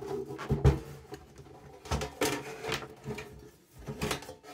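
Metal cover of a Sony TC-S1 cassette deck being worked loose and slid back off the chassis: scraping and rubbing broken by several sharp knocks.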